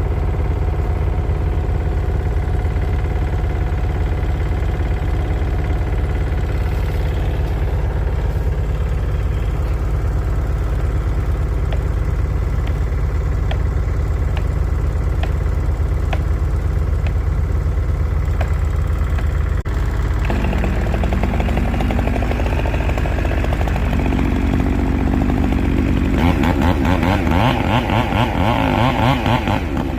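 Small engine running steadily. About twenty seconds in it changes pitch and fills out, then runs louder and rougher near the end, as if taking on load.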